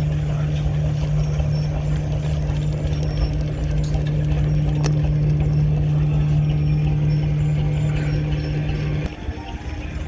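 Working machinery running with a steady low hum, which cuts off suddenly about nine seconds in, over a clattering mechanical background.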